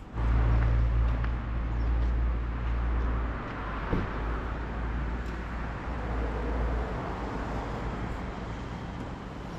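Outdoor road-traffic noise with a steady low hum, loudest in the first few seconds and easing after about seven seconds; a short tap about four seconds in.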